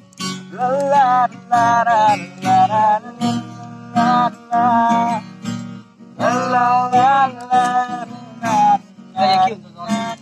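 Acoustic guitar strummed in steady chords while a voice sings a slow, wavering Nepali song melody in phrases of a second or so.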